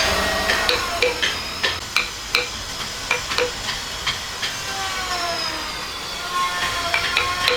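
Woodworking sounds: a run of sharp taps and knocks, two or three a second, followed by a faint gliding whine.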